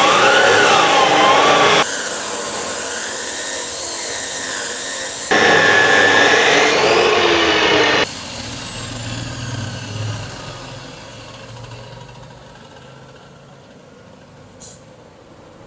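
Iron-cutting machine cutting iron rod: two loud spells of screeching metal cutting, with the machine running more quietly between them. After about eight seconds the machine winds down with a falling whine and fades, and there is a small click near the end.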